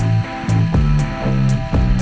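Background music with a steady beat, about two beats a second, over a low bass line.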